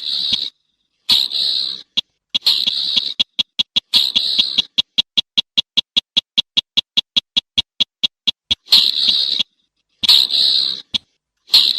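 Slaty-breasted rail calling: short, harsh, rasping bursts, with a long run of sharp ticking notes in the middle, about six a second.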